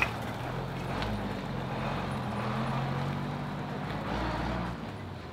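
A Mercedes Unimog's engine running as the truck pulls away and drives off, a steady low hum that fades near the end.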